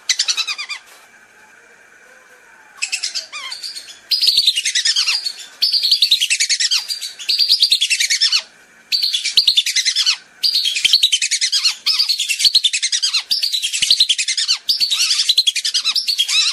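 Whistling ducks (belibis) calling in a flock: rapid, high whistled notes that fall in pitch, in bursts of about a second and a half with short gaps between them. This is the clear-voiced call used as a lure to bring whistling ducks in.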